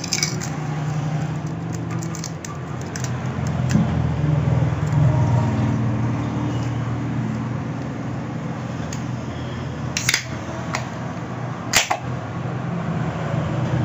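Steady low background hum, with a few faint clicks at the start and two sharp knocks or clicks about ten and twelve seconds in.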